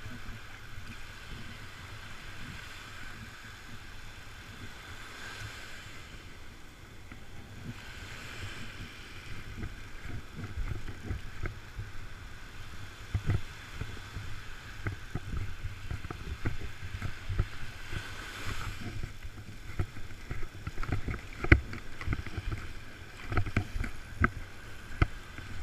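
Low rumble of wind on the microphone over the surf, with irregular knocks and clicks of handling that come more often in the second half.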